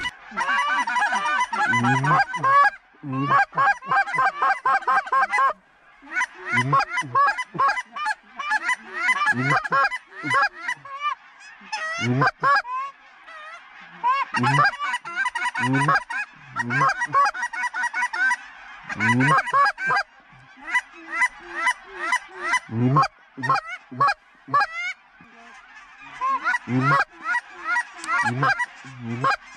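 A large flock of geese honking: many overlapping, repeated calls that each rise sharply in pitch, coming in waves with short lulls.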